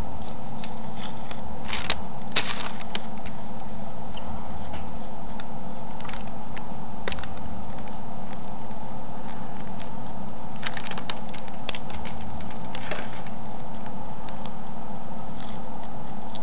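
Freezer paper being peeled off a painted rock: scattered short crackles and scratches of the paper, in clusters, over a steady background hum.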